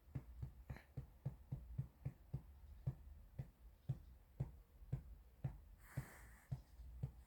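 Soft, regular pats of a hand on a baby's back to bring up a burp, about four a second. A brief hiss comes about six seconds in.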